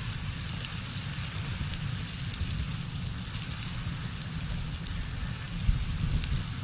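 Pink Cone Geyser erupting: a steady rushing, splashing noise like heavy rain from its water column, with a low rumble underneath and a brief bump near the end.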